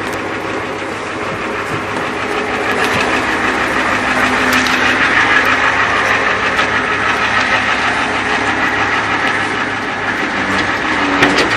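Ford F-450 idling with its power take-off engaged, running the car carrier's hydraulic pump: a steady mechanical whine over the engine's hum.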